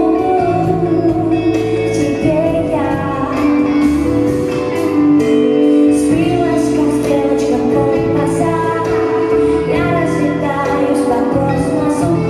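Live band playing a slow song with a woman singing long held notes, backed by keyboard, electric bass and drums with cymbals.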